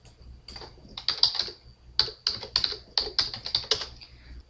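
Typing on a computer keyboard: a quick run of about a dozen keystrokes from about a second in until near the end, entering a word into a search box.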